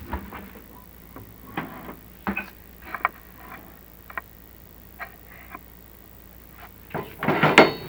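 Chimney inspection camera rig being worked down a flue: scattered light knocks and clicks, then a louder scraping rustle lasting under a second near the end.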